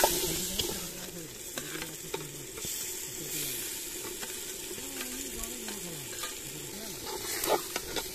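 A ladle stirring chicken curry masala frying in oil in a metal pot: a steady sizzle with scattered scrapes and clinks of the ladle against the pot.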